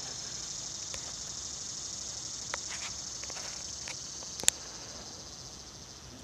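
Steady, high-pitched chorus of insects buzzing. A few sharp clicks cut through it, the loudest about four and a half seconds in.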